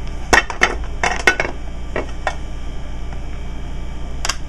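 Glazed ceramic serving platter, upside down over a rice mold, clinking and knocking against the mold and the granite countertop as it is gripped to be flipped. A cluster of sharp clinks comes in the first second and a half, two more come around two seconds in, and one comes near the end.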